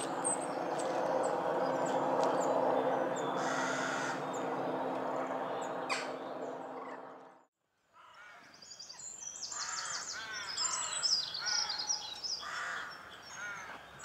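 Birds calling: a dense, harsh, steady calling fills the first half and fades out, then after a brief silence small songbirds sing in quick high chirps and trills.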